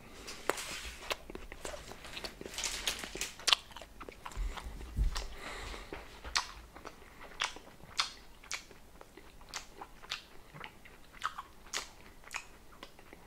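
Close chewing of a bite of meat pretzel: irregular crunching and sharp mouth clicks, densest in the first few seconds.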